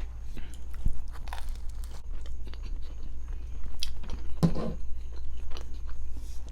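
A person chewing and biting food close to the microphone, with wet smacks and small crunches, and one louder, brief low sound about four and a half seconds in.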